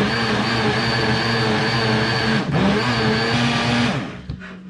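Hamilton Beach single-serve blender running, with a steady motor whine, as the jar is pressed down to blend a milk, banana and avocado smoothie. It cuts out briefly about two and a half seconds in, spins back up, and stops near the end.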